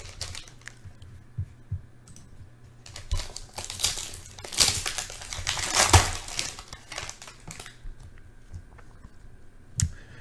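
Foil wrapper of a trading-card pack being torn open and crinkled, with light clicks and taps of the cards being handled; the crinkling is loudest midway.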